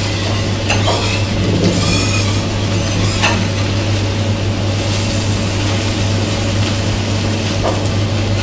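Iberico black pork sizzling on a teppanyaki griddle: a steady frying hiss, with a few short clicks in the first three seconds and one near the end, over a steady low hum.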